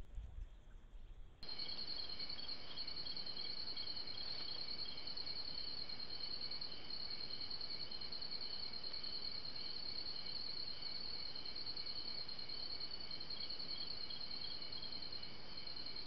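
Steady night chorus of insects: several high, rapidly pulsing trills layered over microphone hiss. It starts abruptly about a second and a half in, after a brief low rumble.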